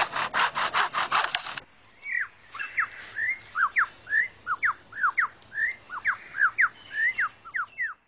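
Superb lyrebird imitating chainsaw sounds: a rhythmic rasping of about five strokes a second that stops about one and a half seconds in. It then gives a run of loud whistled notes, each sweeping sharply up or down, about three a second, until the sound cuts off at the end.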